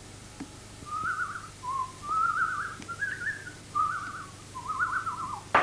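Someone whistling a short tune in five quavering, warbling phrases, then a single sharp knock near the end.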